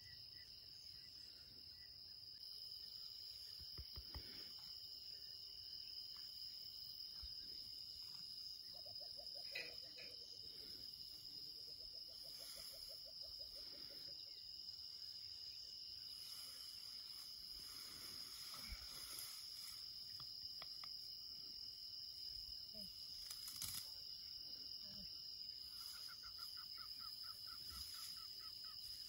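Faint evening outdoor ambience: a steady high-pitched insect chirr, with two brief trilled animal calls, one lower about a third of the way in and one higher near the end, and a few soft rustles in the grass.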